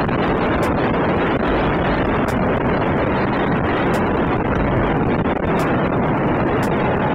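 Steady wind rushing over the microphone while riding an electric motorcycle, with faint ticks about every second and a half.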